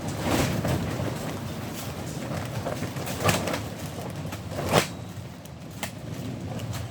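Handling knocks and clatters, about five separate ones with the loudest a little before five seconds, over a steady low hum.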